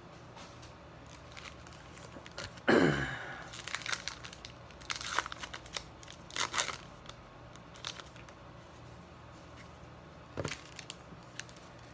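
Baseball card pack wrappers and packaging being handled and torn open: crinkling and tearing, with a louder rip about three seconds in and scattered rustles and clicks after.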